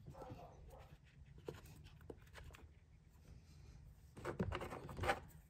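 Faint, quiet handling: a few light ticks, then a cluster of louder clicks and rustling about four seconds in as small parts are handled.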